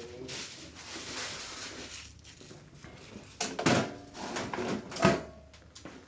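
Patient shifting and turning on a padded treatment table: rustling and creaking handling sounds, with two short, louder pitched sounds about three and a half and five seconds in.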